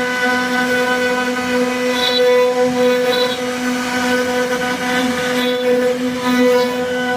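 CNC router spindle running with a steady, unchanging whine while cutting a door panel design.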